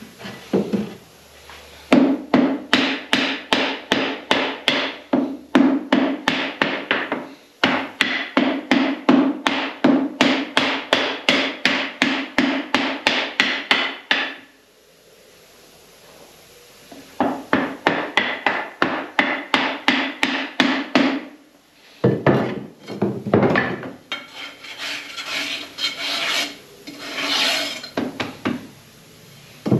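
Moulding sand being rammed into a foundry flask with a hand rammer: long runs of quick, even thuds, about three a second, with a pause in the middle. Near the end the blows give way to a rough scraping as a bar strikes off the excess sand across the top of the flask.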